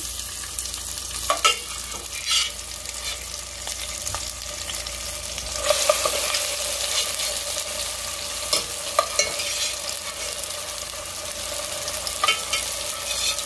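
Tomato halves frying in oil in a stainless steel pot, a steady sizzle. A metal utensil clinks and scrapes against the pot now and then.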